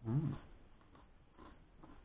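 A person chewing a mouthful of a dry white bread sandwich with salami and cheese. At the start comes a short closed-mouth hum that rises and falls in pitch, then faint chewing noises at a slow, even rate.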